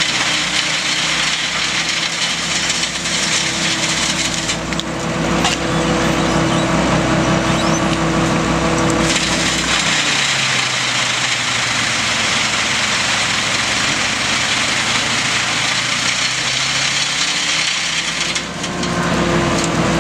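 Wood chipping: a Bruks chipper driven by a Timberjack 1410D forwarder's diesel engine, with the cracking and splintering of wood going through it over the steady run of the engine. The engine note drops at about the middle and rises again near the end.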